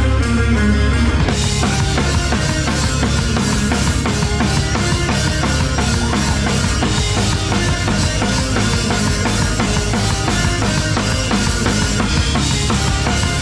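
Live emo/punk rock band playing, with a close-miked drum kit loudest: bass drum, snare and cymbals struck continuously over electric guitar. The cymbals get brighter about a second in.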